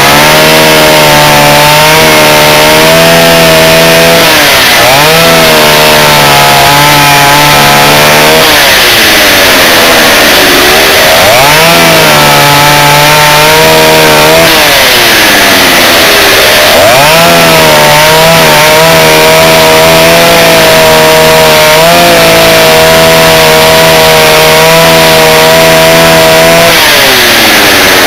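Stihl 08 two-stroke chainsaw running at full throttle, cutting through wood with a somewhat blunt chain. The engine note dips and climbs back three times as it is eased off and loaded in the cut, and falls away near the end.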